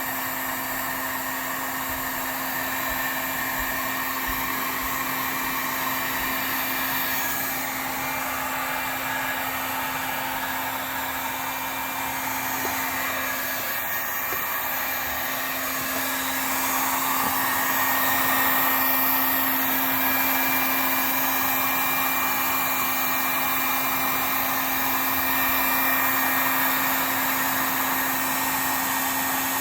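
Heat gun running on its high setting: a steady blowing whir with a constant hum under it, getting a little louder about 17 seconds in.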